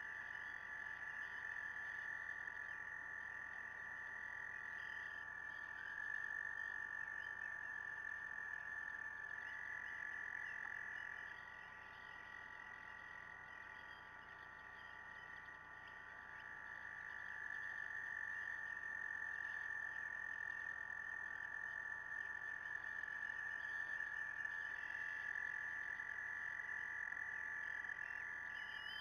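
A chorus of frogs trilling: long overlapping trills, one taking over from another every few seconds.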